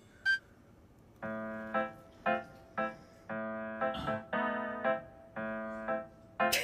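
Background music: an electric piano plays a run of short repeated chords that starts about a second in. A short sharp burst of noise cuts in near the end.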